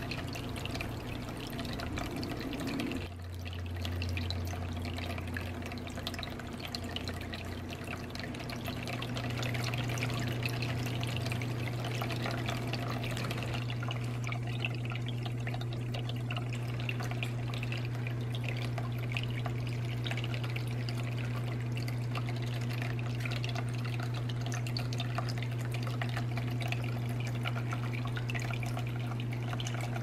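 Small homemade tabletop water fountain running: water trickling and dripping over the rim of the upper tier into the basin below, with a steady low hum underneath.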